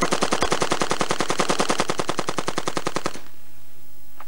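AK-47 rifle set to fully automatic, firing one continuous burst of about three seconds at roughly ten shots a second, then stopping abruptly.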